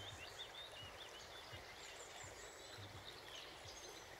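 Faint wild birdsong, short high chirps and twitters that come mostly in the first couple of seconds, over the soft steady hiss of a babbling stream.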